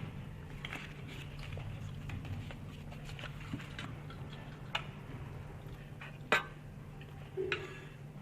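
Eating sounds: scattered small clicks and taps of utensils against a bowl, with a few sharper knocks in the second half, over a steady low hum.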